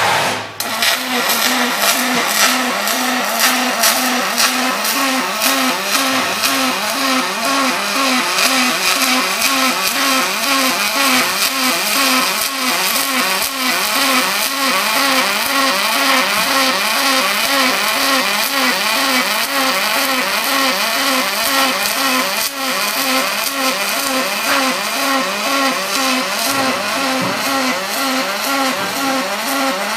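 Robotic arc welding on aluminum: the welding arc buzzes and hisses steadily, its buzz wavering in a regular pulse about three times a second.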